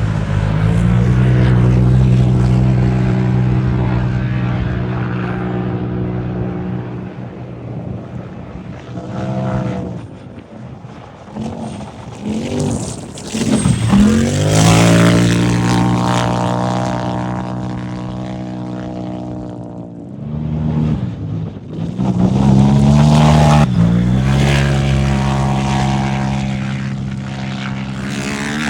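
Turbocharged race UTVs passing one after another, their engine notes swinging up and down in pitch as each goes by.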